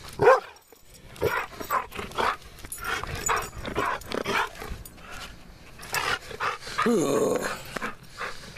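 Small white dog growling and snarling in rough play, in a string of short irregular bursts with the loudest just after the start. About seven seconds in comes one longer cry that bends in pitch.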